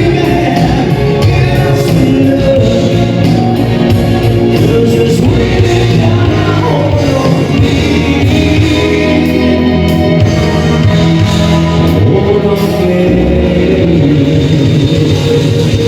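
Live rock band playing loudly with a lead vocal singing over it.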